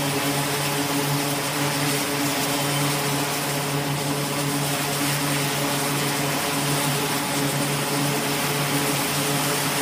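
E-2 Hawkeye's twin Allison T56 turboprop engines running steadily on deck: a constant low propeller drone with a loud even turbine hiss over it.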